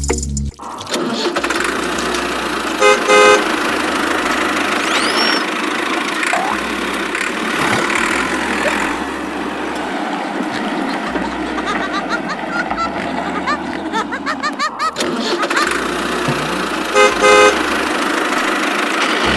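A horn honking in two short bursts, about three seconds in and again near the end, over a steady noisy background.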